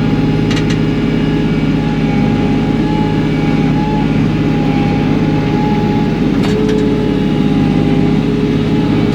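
Kioti NS6010 compact tractor's diesel engine running steadily as the loader bucket skims topsoil, with a steady high whine over the engine note.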